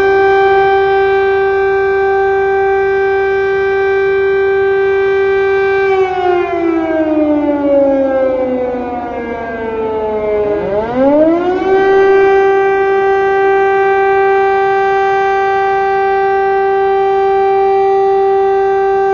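Air raid siren sounding a steady wail, its pitch falling slowly from about six seconds in, then rising quickly back up near the eleven-second mark and holding steady again, just starting to fall once more at the very end.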